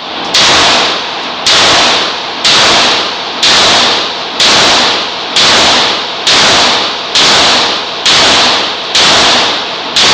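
Gunshots at a shooting range, about one a second, roughly ten in a row, each sharp crack trailing off in a long echo.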